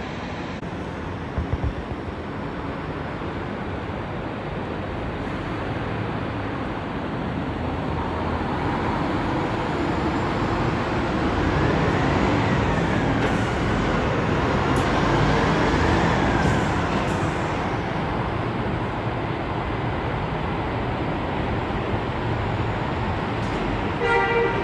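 Steady engine and road noise inside a moving coach bus. It grows louder for several seconds in the middle and then eases. There are a few short knocks about a second and a half in, and a brief pitched beep near the end.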